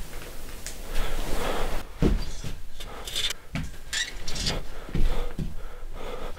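Irregular knocks and thuds in a small room, mixed with rustling, starting about a second in; the heaviest thuds come about two and five seconds in.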